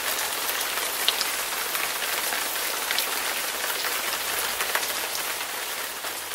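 Steady rain falling on a hard surface: a dense hiss with scattered drop ticks, starting to fade out near the end.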